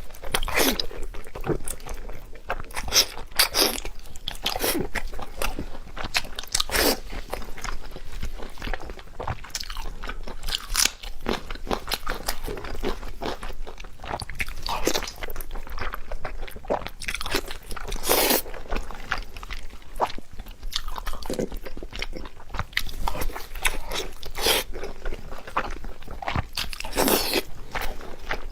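Close-miked eating of pork belly: crunchy bites and chewing that come irregularly every second or two.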